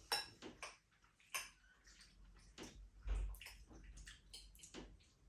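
Faint scattered clicks and light taps of someone eating: cutlery against the meal's tray and mouth noises.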